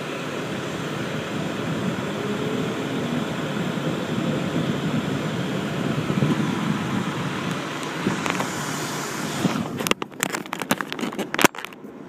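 A truck engine running steadily, powering the fire apparatus's aerial platform as it moves in. Near the end come a series of sharp knocks and rustling as the phone is handled.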